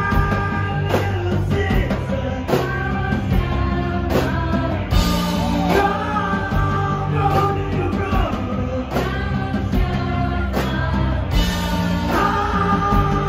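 Live rock band playing: a lead vocal sung over keyboards, electric guitar, bass and drums, with a steady drum beat.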